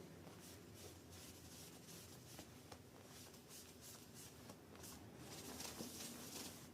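Faint scratchy rubbing of tissue paper across a CPU's metal lid, wiping off thermal paste in short repeated strokes with a few light clicks. The strokes get busier near the end.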